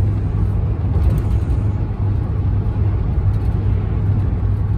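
Steady low road and engine rumble heard inside a car cabin while driving at highway speed.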